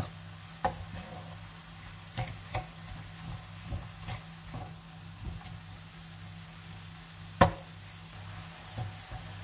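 Ground meat and chopped onion sizzling in a ceramic-coated frying pan as a wooden spatula stirs them. The spatula knocks against the pan now and then, loudest once about seven seconds in.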